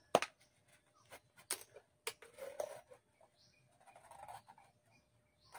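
Small clear plastic bottle being handled and cut with a utility knife to make an intake filter: scattered sharp clicks and short scratchy crinkles of plastic.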